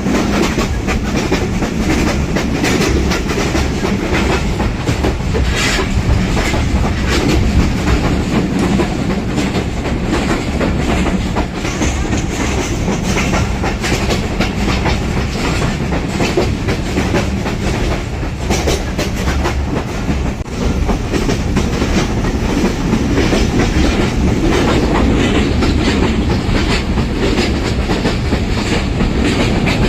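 Simanta Express passenger train running at speed, its wheels clattering steadily over the rail joints with a continuous rumble.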